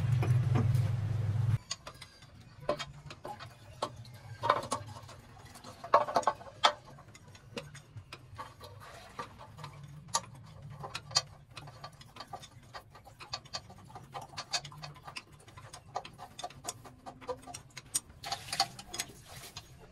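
Hyundai 6D16 six-cylinder diesel engine running, then cutting off suddenly about a second and a half in. After that come scattered sharp clicks and light metallic taps over a faint hum.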